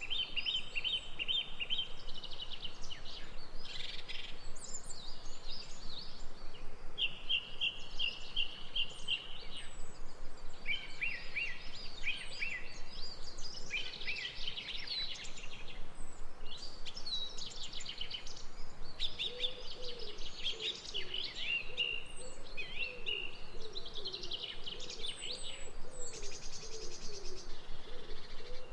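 Several songbirds singing at once in a steady chorus of trills and chirps. About two-thirds of the way through, a low call repeated again and again joins them.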